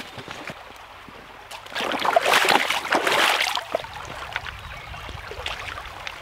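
Shallow rocky stream running, with scattered small clicks. About two seconds in comes a louder stretch of splashing water lasting about two seconds, then the steady flow again.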